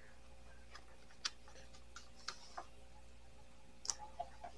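A few faint, irregular light clicks and taps from small objects being handled at a table, with the clearest about a second in and another near the end.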